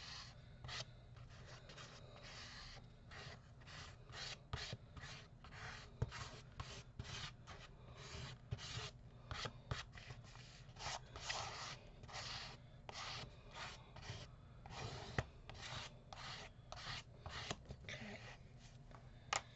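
Texture paste being spread and rubbed onto a paper collage page: a faint, steady run of short scraping strokes, about two a second.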